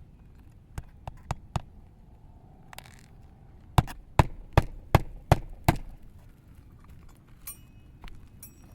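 Hammer hand-nailing roofing nails into a shingle: four light taps to start a nail, then six hard strikes in quick succession, about two and a half a second, driving it in. A few faint metallic clinks follow near the end.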